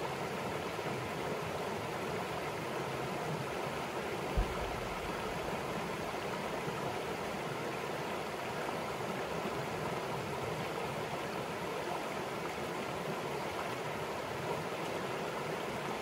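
Cahaba River water rushing steadily over rocky shoals and riffles. A single short, low thump comes about four seconds in.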